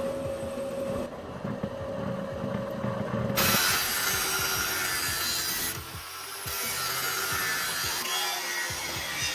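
Workshop tool abrading or cutting material: a steady rasping hiss that starts loudly about three and a half seconds in, after a stretch with a steady hum.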